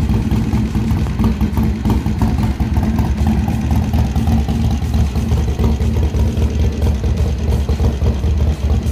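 Harley-Davidson Sportster XL1200CX Roadster's 1200 cc air-cooled V-twin idling steadily at about 1,100 rpm in neutral. It runs through an aftermarket exhaust with a Stage 1 kit that includes a cam.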